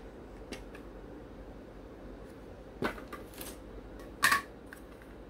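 Hard plastic model-kit parts clicking and knocking as they are handled and set down: a few short clacks, a sharp one about three seconds in and the loudest a little past four seconds, over a steady low room hum.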